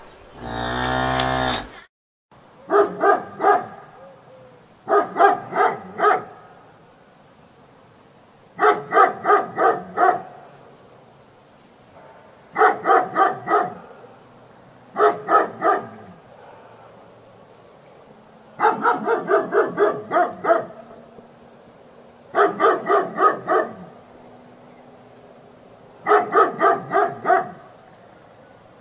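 A cow moos once, a short low call that stops about two seconds in. Then a dog barks in quick runs of about five barks each, eight runs a few seconds apart.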